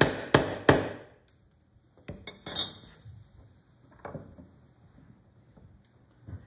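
Small hammer tapping a metal woodworking tool, three quick sharp strikes with a thin metallic ring, stopping about a second in. A light clatter follows, like a tool being set down on the wooden bench, then a few faint knocks.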